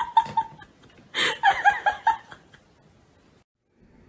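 A person laughing in two short bursts of breathy, pulsed chuckles.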